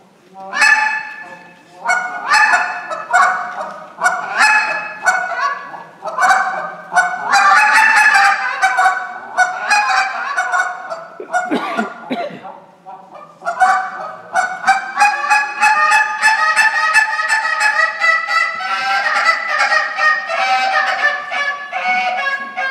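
Hand-held goose call blown in a contest routine imitating Canada geese: rapid runs of short honks and clucks, a brief low, falling note a little before the middle, and a longer stretch of quick, closely linked calls in the second half.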